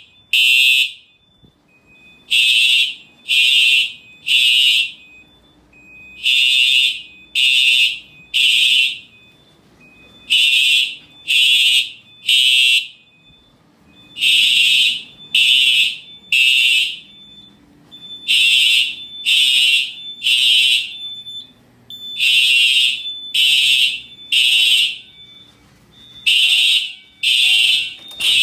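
Simplex TrueAlert fire alarm horns sounding the temporal-3 evacuation pattern: three loud, buzzy high-pitched blasts about half a second each, then a pause, repeating about every four seconds.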